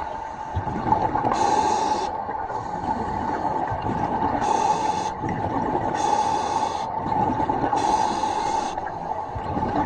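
A commercial diver's breathing gear hissing in regular breaths, each under a second, about every one and a half to two seconds, over a steady hum and low rumble.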